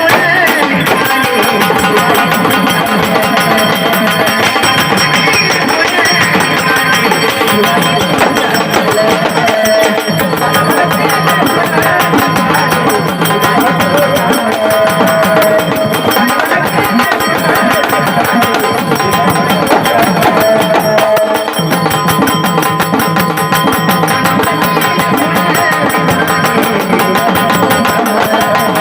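Traditional Marathi folk music of a gavlan song, with a steady, dense percussion beat under sustained melodic lines.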